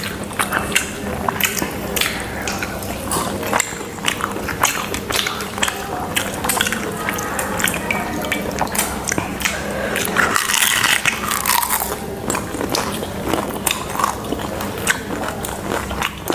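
Close-up eating sounds of puchka (pani puri) and chicken lollipop being bitten and chewed: many short crunchy clicks mixed with wet, juicy mouth sounds.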